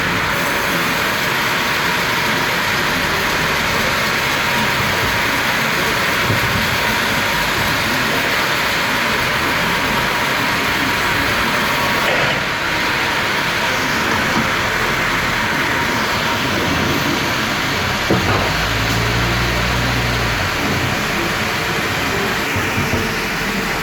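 Sawmill machinery running: a loud, steady noise with a faint steady hum, and a low rumble for about two seconds about three-quarters of the way through.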